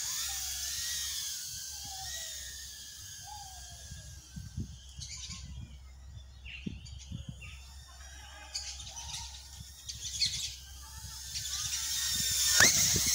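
Tiny whoop drone's brushless motors and ducted propellers whining at a high pitch that wavers with throttle as it lifts off. The whine drops away in the middle as the drone flies off, then grows louder again near the end as it comes back close. Birds chirp now and then in the background.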